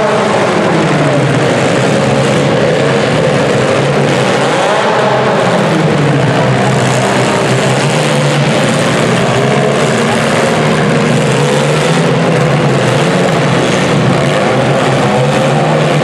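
Many compact demolition-derby cars' engines running and revving together, their pitches rising and falling as the cars drive and ram one another.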